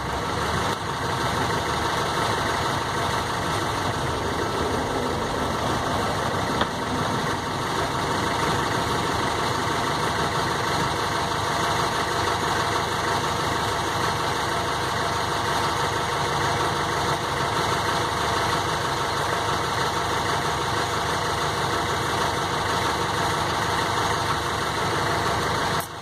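Steady mechanical drone like an idling engine, even in level throughout, with one faint click about six and a half seconds in.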